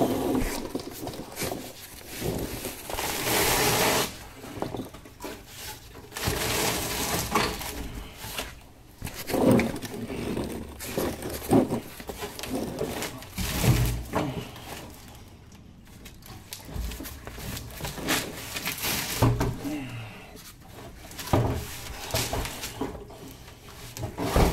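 Irregular scrapes, rustles and knocks from a rusty car fuel tank and its lines being shifted by hand under the car, in scattered bursts with pauses between.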